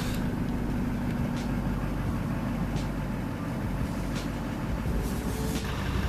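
A vehicle engine running steadily at low revs while backing up a trailer, with faint ticks about every second and a half.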